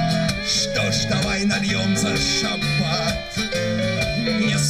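Live bard song (Russian auteur song) performance amplified through a stage PA: strummed acoustic guitar and violin with singing.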